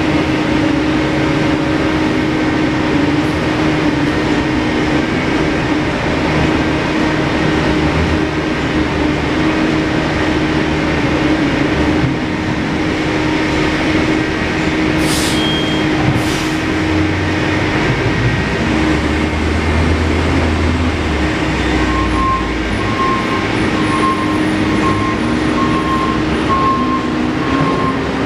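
Loud, steady mechanical rumble of city street noise with a constant hum. Near the end a faint tone starts beeping about once a second.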